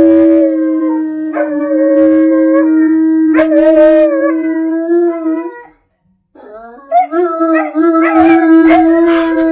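Husky howling in long, steady held notes. The sound drops out for a moment about six seconds in, then a second howl rises in pitch and holds.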